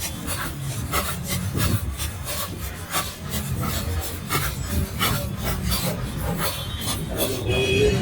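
Rhythmic scraping of a spoon against a bowl as bhel puri is tossed and mixed, about two strokes a second, over a low steady rumble.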